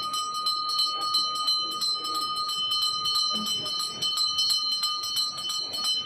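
Puja bell rung continuously. Quick, repeated strokes several times a second keep a steady metallic ringing going.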